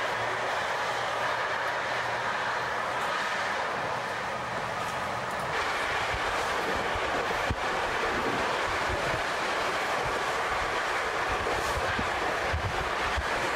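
Moving passenger train heard from inside the carriage: steady running noise of wheels on rail, with irregular clicks and knocks from the wheels in the second half.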